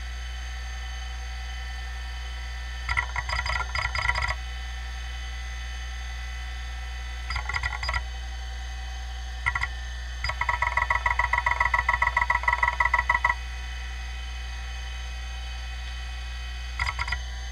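Kalok KL-320 MFM hard drive spinning with a steady hum, broken by bursts of rapid, even ticking as its heads seek. The longest and loudest burst lasts about three seconds, and a short burst comes near the end. The drive is badly damaged: a head broke off inside and the top arm has been cut off, so it runs on three heads.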